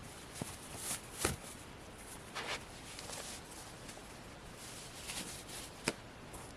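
A few sharp clicks and knocks, with short rustles in between, over quiet room tone.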